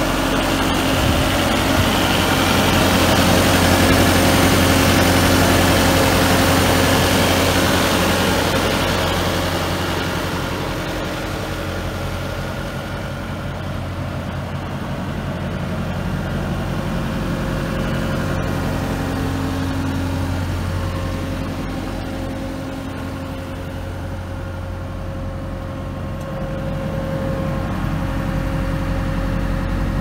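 Case TR320 compact track loader's diesel engine idling steadily, louder for the first several seconds, then settling lower.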